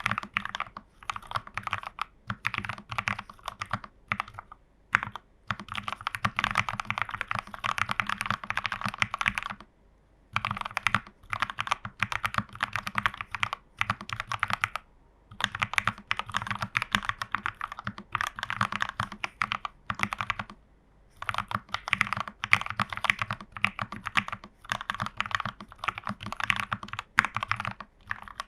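Typing on a plateless plastic-case mechanical keyboard with lubed Gateron Pro Milky Yellow linear switches and case and PCB foam: fast runs of keystrokes broken by short pauses.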